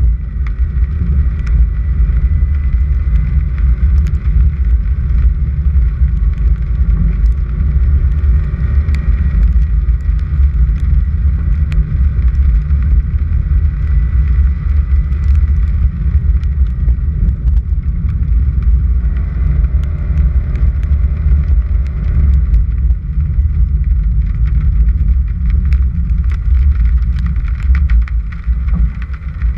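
A vehicle driving on a dirt and gravel road: a loud, steady low rumble of tyres and running gear, with scattered small ticks throughout.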